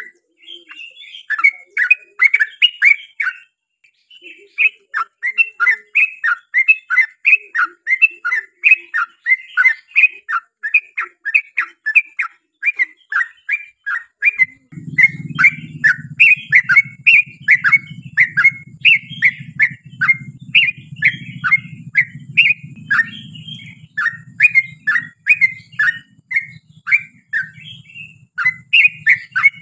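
Yellow-vented bulbul (trucukan) singing a long, fast, unbroken run of short chattering notes, about three or four a second. This is the long rapid-fire song used to lure other bulbuls into answering. A steady low hum comes in about halfway through.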